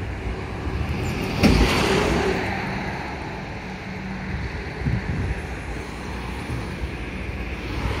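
Road traffic noise with wind on the microphone. A sudden loud rush comes about a second and a half in and fades over the next second, and a car passes close near the end.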